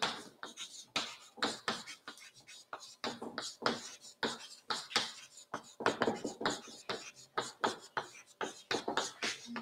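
Chalk writing on a chalkboard: a fast, irregular run of taps and short scratchy strokes as words are written out.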